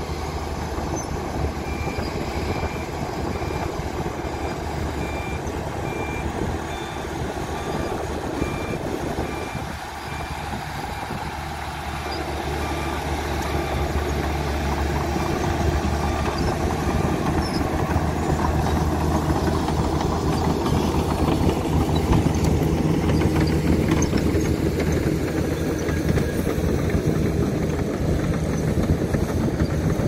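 Diesel engines of a crawler bulldozer and dump trucks running steadily, with a truck's reversing beeper repeating for roughly the first ten seconds. From about halfway through, the bulldozer's engine becomes louder as it works close by.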